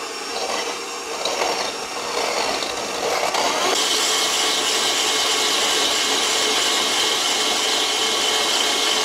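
KitchenAid stand mixer running at full speed with its shaved ice attachment, the blade grinding a frozen ice puck into shaved ice: a steady motor and scraping grind that grows louder about four seconds in, then holds steady.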